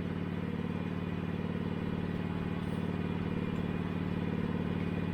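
Norwood HD36 portable band sawmill's engine running steadily with an even, unchanging note.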